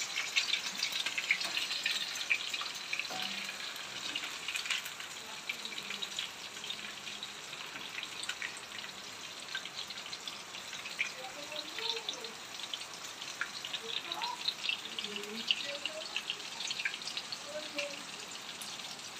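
Battered chicken pakoda deep-frying in hot oil in a kadai: a steady sizzle full of small crackling pops.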